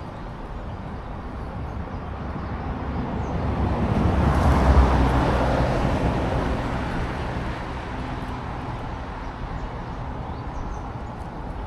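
A motor vehicle passing by: a rumbling, rushing noise that swells to its loudest about five seconds in, then fades away.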